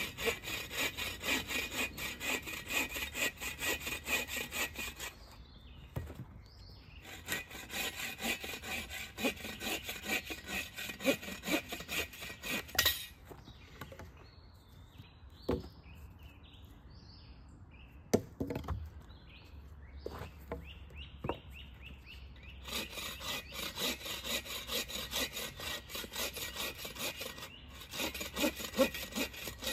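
Agawa Boreal 24-inch folding bow saw cutting through a fallen branch with quick back-and-forth strokes, in three bouts with a pause of several seconds in the middle. During the pause there are a few separate knocks, one sharp and loud about 18 seconds in.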